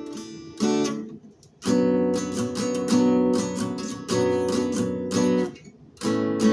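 Acoustic guitar strumming chords in a steady rhythm, with two brief pauses where the sound dies away before the strumming resumes.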